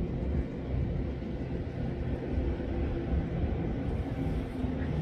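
Aerial tramway cabin running along its haul cables toward the summit station, a steady low hum under an uneven low rumble of wind buffeting the microphone.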